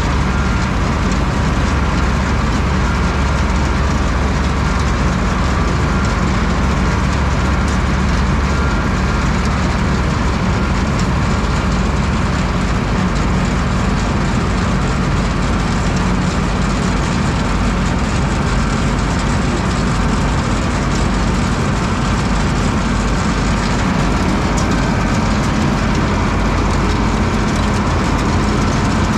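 Self-unloading forage wagon's beaters and conveyor discharging chopped oats and peas onto a silage bagger's feed table, with the machinery and a tractor engine running steadily.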